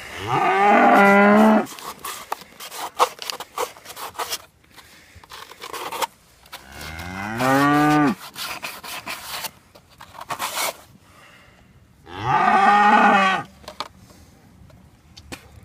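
A calf with a broken leg bawls three times, each call about a second long, with short clicks and rustling between the calls.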